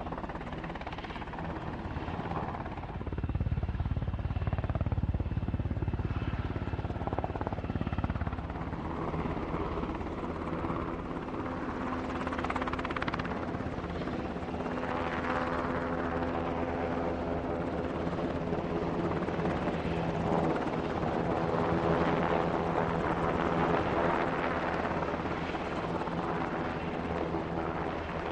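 Steady engine drone carrying a set of evenly spaced pitched lines, which grow stronger about halfway through; a low rumble swells for a few seconds near the start.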